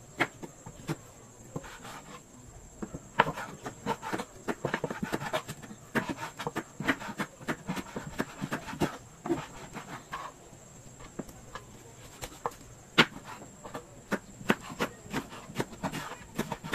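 Irregular knocks and clicks of utensils at cooking work, the loudest about two-thirds of the way in, over a steady high-pitched insect drone.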